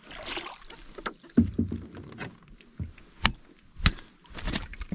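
Scattered knocks and thuds in a small rowboat, with a wash of splashing water in the first second.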